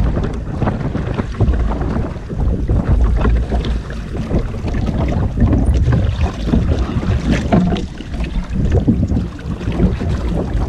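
Wind buffeting the microphone over sea water splashing and sloshing against a small outrigger boat's hull.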